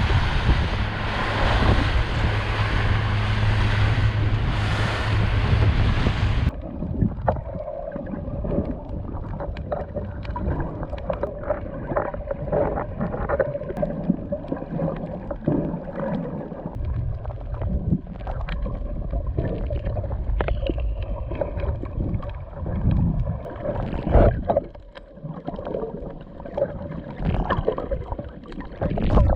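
Wind buffeting the microphone over sea waves, then about six seconds in the sound cuts off sharply to a muffled underwater hush as the camera goes under the surface for snorkelling. Many short clicks and some bubbling run through the underwater part.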